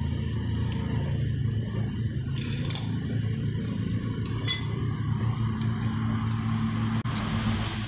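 Metal tools and engine parts clinking and knocking as the cylinder head of a Bajaj Discover motorcycle engine is unbolted, a few scattered clinks with harder knocks around a third and halfway in, over a steady low hum.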